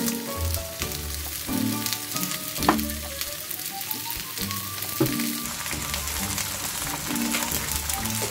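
Bok choy and sweet peppers sizzling as they stir-fry in a wok while oyster sauce is poured over them, with two sharp taps about three and five seconds in. Light background music with a melody plays along.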